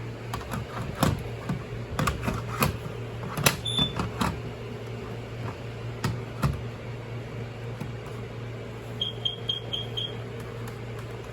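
Plastic clicks and knocks from a battery smoke alarm being handled, then a quick run of five short high electronic beeps a little after the nine-second mark, over a steady low hum.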